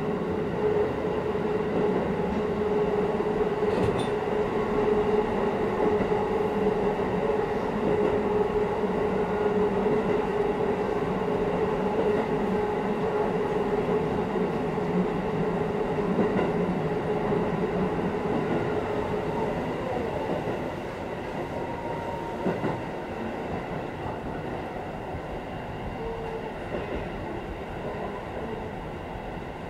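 Shin-Keisei electric commuter train running on its rails, heard from inside the front car: steady running noise with a steady hum that fades out about two-thirds of the way through, leaving the noise a little quieter.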